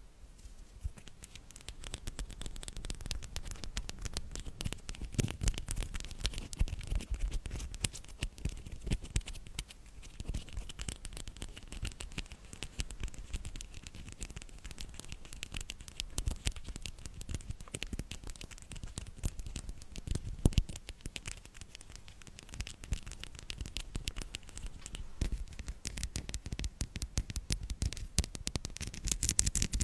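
Close-miked ASMR trigger sounds: a dense run of small scratches and crackles. It starts about a second in and keeps going without a break.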